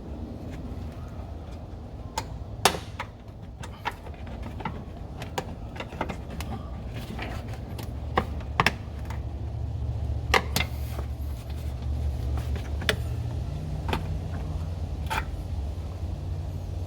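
Scattered light clicks and knocks of hands and tools working on a car's front wheel hub and ABS sensor, over a low steady rumble that grows louder about eight seconds in.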